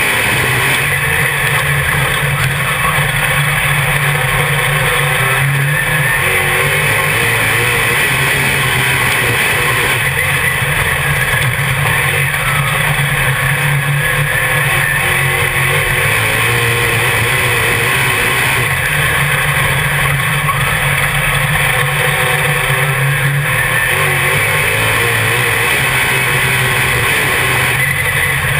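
Dirt modified race car's V8 engine running loud and continuous, heard from inside the cockpit, with its pitch wavering a little as it drives around the oval.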